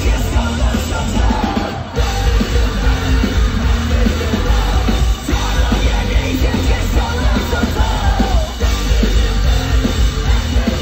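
Punk rock band playing live at full concert volume, heard from within the crowd: drums and distorted guitars with a singer's vocals over them.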